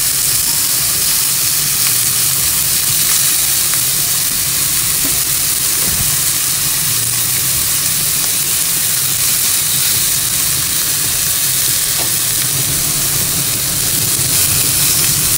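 Skin-on chicken pieces sizzling in a dry non-stick frying pan with no oil added, frying in their own rendered fat, a steady hiss with a few light taps as wooden chopsticks turn the pieces. Under it runs the low, steady hum of the kitchen exhaust fan.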